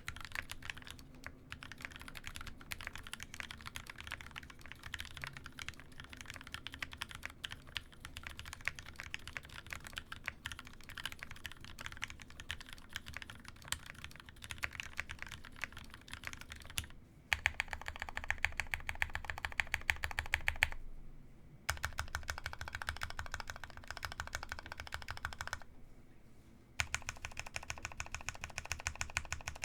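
Typing on a Baka60 60% mechanical keyboard fitted with Gateron Yellow linear switches lubed with Krytox 205g0: a steady patter of keystrokes that gets louder and faster a little past halfway, with two brief pauses near the end.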